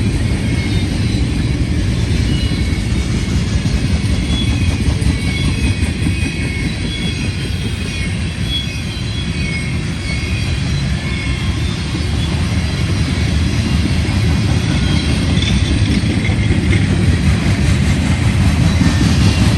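Freight cars of a mixed manifest train rolling past close by: a steady rumble of steel wheels on rail, with short high wheel squeals coming and going.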